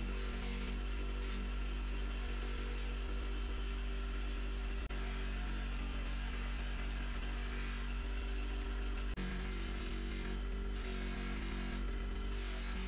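Bench-mounted electric grinder with a disc attachment running steadily: a constant motor hum, with a hiss of abrasion as a small metal part is held against the spinning disc.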